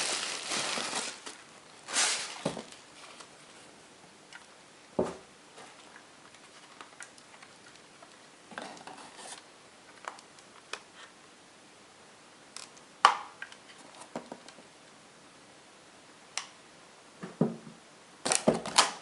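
Scattered handling noises of a newly unboxed camcorder and its packaging: rustling, with single clicks and knocks now and then and a denser patch of rustling near the end.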